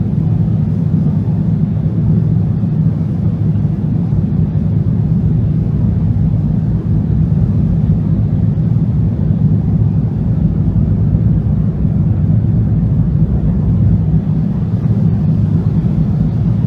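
A loud, steady low rumble without pitch or rhythm.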